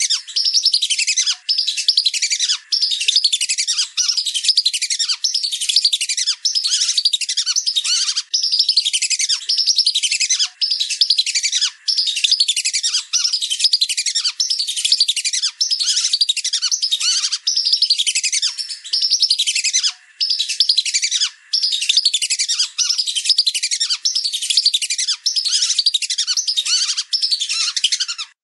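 Lesser whistling ducks calling: a dense, almost unbroken stream of high, overlapping whistled calls, broken by short pauses every second or so.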